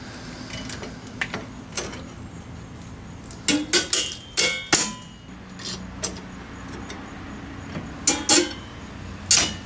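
Sharp metallic clicks and clinks, some briefly ringing, of a brake spring tool and a steel drum-brake shoe return spring scraping and snapping over the anchor pin. There is a cluster of them a few seconds in, more at about eight seconds, and one near the end.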